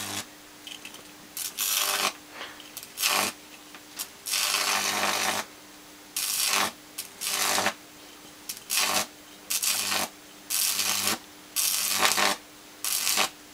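High-voltage arc from a ballasted microwave oven transformer, drawn between two wires, crackling and buzzing in about ten separate bursts of half a second to a second each, over a steady low hum. The current is high enough that the wire ends burn away.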